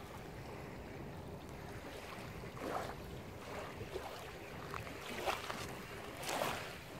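Wind on the microphone over water lapping at a shore: a steady low rush with a few soft, short swells about three, five and six seconds in.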